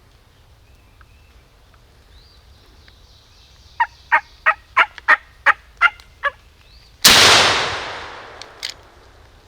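A wild turkey calls in a run of about nine evenly spaced notes. About a second later a single loud shotgun shot goes off, its echo dying away over a second or so.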